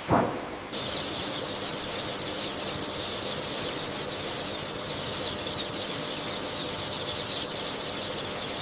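A large flock of chickens calling at once, a dense, steady, high chorus of cheeping, after a brief loud burst at the very start.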